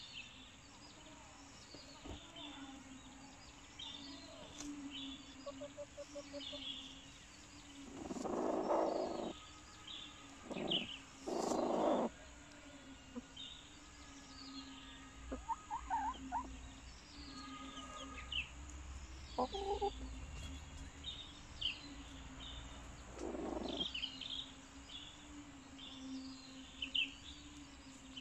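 Hens in a nesting crate clucking softly over a steady low hum, with a few louder harsh squawking bursts, around 8, 11 and 23 seconds in. Small high chirps come and go throughout.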